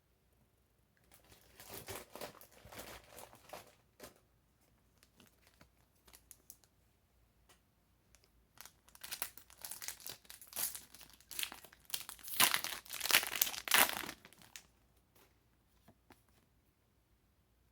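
Foil Pokémon TCG booster pack wrapper crinkling and tearing as the pack is opened by hand, in two spells: a short one about a second in and a longer, louder one from about nine to fifteen seconds.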